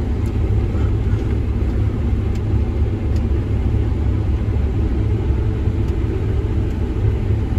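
Combine harvester running steadily while cutting grain, heard from inside the cab as a constant low drone.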